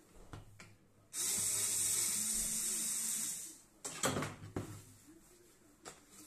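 Water pouring out of a tilted stainless steel electric kettle: a steady splashing hiss for about two and a half seconds, then a couple of knocks as the kettle is handled.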